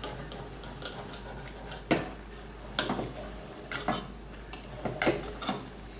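Kitchen knife slicing through a raw salmon fillet on a ceramic plate, the blade clicking against the plate a few times, roughly a second apart.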